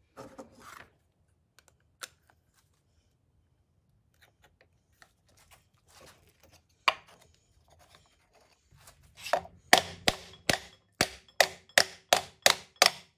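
Hammer blows on a wood block held over a homemade PVC-pipe seal driver, driving a new pinion seal into a Dana 44 axle housing. About ten sharp strikes, two or three a second, come in the last few seconds, after a few faint handling clicks.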